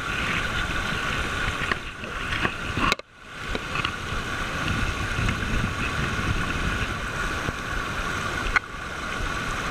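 Shallow river rushing over a gravel riffle, a steady sound of running water. It cuts out abruptly about three seconds in and swells back, and there is a single sharp click near the end.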